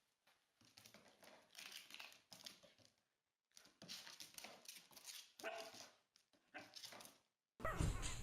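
Faint dog sounds: a run of short, scrappy noises with one brief whine about five and a half seconds in. A much louder, different recording cuts in near the end.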